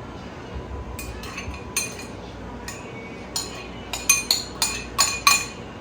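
Kitchen utensils clinking against dishes, about ten sharp ringing clinks. They are spread out at first and come quicker and louder over the last two seconds.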